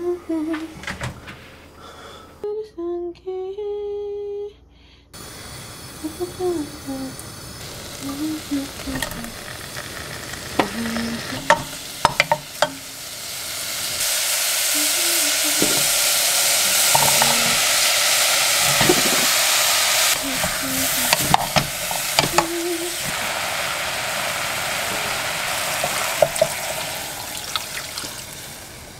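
Thinly sliced beef sizzling in sesame oil in a pot as it is stir-fried, with a spatula clicking and scraping against the pot. The sizzle grows louder about halfway through.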